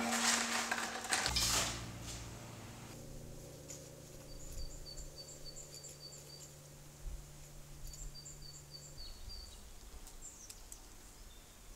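A second or so of loud rustling, then a small bird chirping: runs of quick, high, repeated chirps in two spells over a faint steady low hum.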